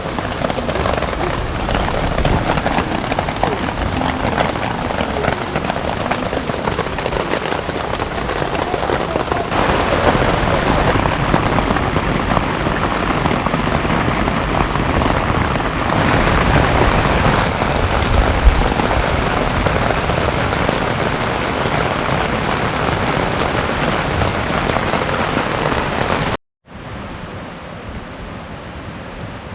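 Heavy rain falling steadily as a dense, loud hiss. Near the end it cuts off abruptly, and a much quieter, duller rain hiss follows.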